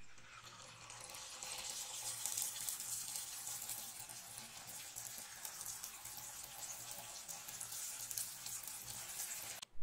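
Jalebi batter sizzling as it fries in hot oil, a steady crackling hiss. It builds over the first second and cuts off suddenly near the end.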